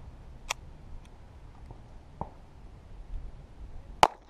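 Walther P22 .22 LR pistol being handled after a failure to eject, with a sharp click about half a second in and a lighter click about two seconds in, then a single shot near the end, the loudest sound.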